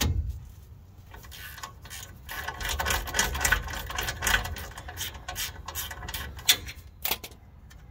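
Socket ratchet clicking in fast runs, with a few separate clicks, as it backs off one of the nuts that hold the rear axle assembly to the axle housing.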